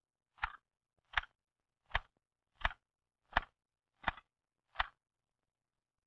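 Single keys struck one at a time on an L.C. Smith manual typewriter: seven sharp, evenly spaced clacks of the typebar hitting the platen, about one every three-quarters of a second.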